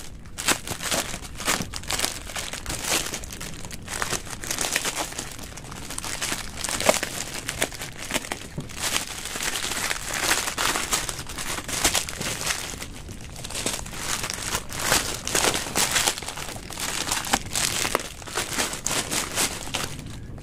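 Plastic parcel packaging crinkling and rustling as it is handled and unwrapped by hand, with a continual run of irregular crackles.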